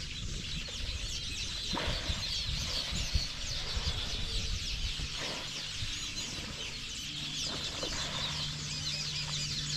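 A large colony of small birds chattering, many short high chirps overlapping continuously, over a low rumble.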